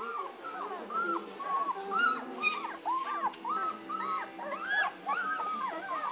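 Several two-week-old German Shepherd puppies whimpering and squeaking together, a run of short high cries that rise and fall, a few a second and overlapping.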